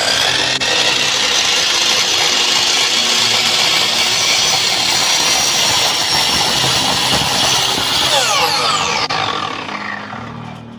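Electric power tool's motor spinning up, running steadily at full speed, then winding down with a falling pitch over the last couple of seconds.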